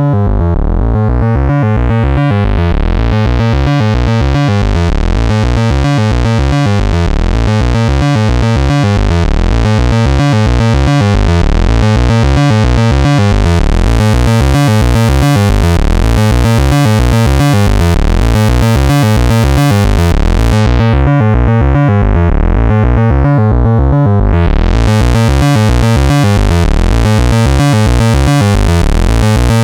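Eurorack synthesizer patch: an E350 Morphing Terrarium wavetable oscillator through a voltage-controlled filter, playing a heavy-bassed, pulsing, repeating pattern as an LFO sweeps the filter. About twenty seconds in the filter closes and dulls the sound, then sweeps open again a few seconds later.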